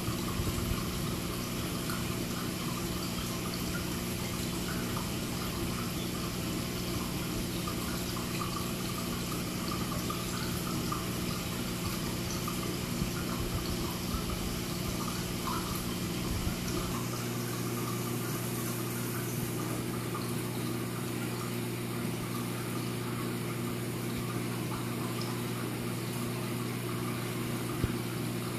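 Reef aquarium's water circulation: water running and trickling steadily, with a steady electrical hum from the pumps. About 17 seconds in, the deepest rumble drops away while the hum carries on.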